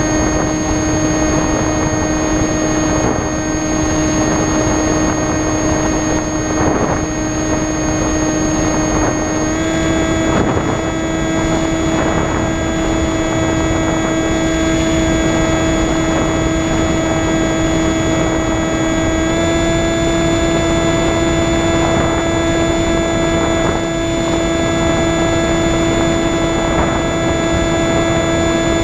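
An electric RC plane's motor and propeller whining steadily in flight, one droning tone with overtones over a rush of air. The pitch steps up slightly twice, about a third and two-thirds of the way through, as the motor draws more current.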